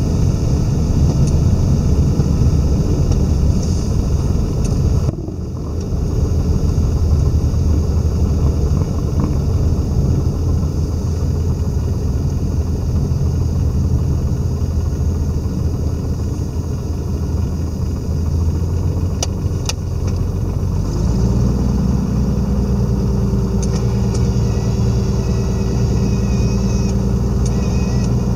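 Lycoming piston engine and pusher propeller of a Velocity XL at low power, heard from inside the cockpit during the landing rollout, with a heavy rumble from the runway. The rumble dips briefly about five seconds in. About 21 seconds in it settles into a steadier, even engine hum as the aircraft slows to taxi.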